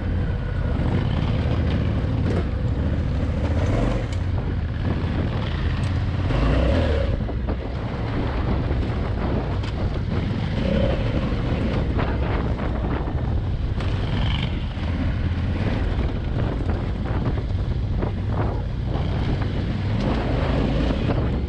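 Adventure motorcycle engine running steadily as the bike rides a loose gravel trail, with wind rushing over the on-board microphone.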